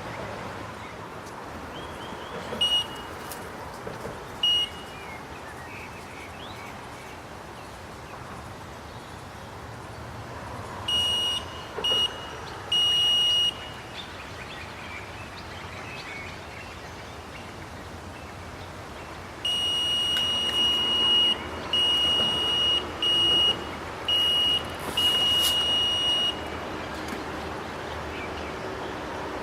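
Electronic carp bite alarm beeping as line is taken by a fish at the bait. Single beeps come about three and four and a half seconds in, then three beeps around eleven to thirteen seconds, then a longer stuttering run of beeps from about twenty seconds in.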